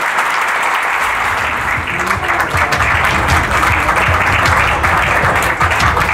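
Audience applauding. Background music with a low, pulsing beat comes in under the clapping about two seconds in.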